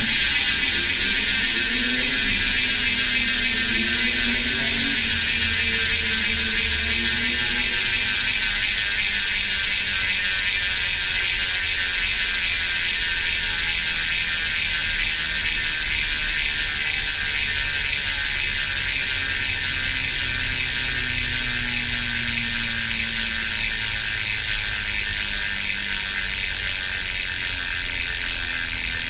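Koozer XM490 rear hub freewheeling, its freehub pawls clicking in a fast, even ratchet buzz as the folding bike's rear wheel coasts on a stand after being spun by the pedals. The clicking slowly fades as the wheel spins down.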